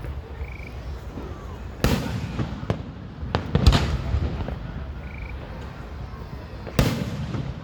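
Fireworks shells bursting in a display: three loud booms about two, three and a half, and seven seconds in, with a few smaller pops between and a low rumbling echo after each.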